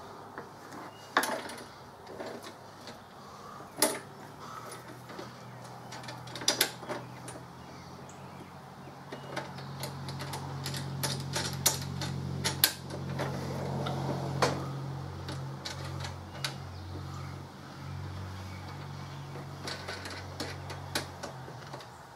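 Scattered clicks and knocks of metal and plastic parts as a new push mower's handle is fitted and handled, over a low steady rumble that comes in about five seconds in.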